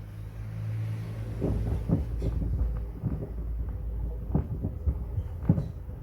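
Hoover washing machine tumbling a load of wood pieces: a low motor and drum rumble, with irregular hard knocks as the wood drops and strikes the drum, the loudest near the end.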